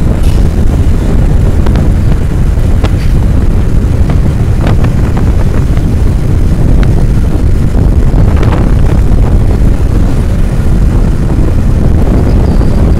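Wind buffeting the microphone while riding along in a moving open vehicle, a loud steady rumble with road noise underneath and a few light clicks or rattles.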